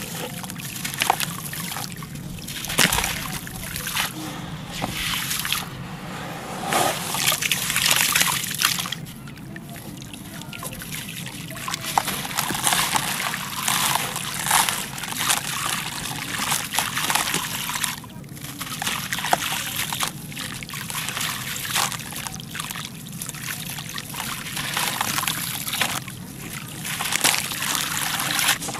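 Crumbly concrete chunks crushed and crumbled by hand, the grit and powder pouring and pattering into water in a basin in repeated gritty surges with scattered small cracks.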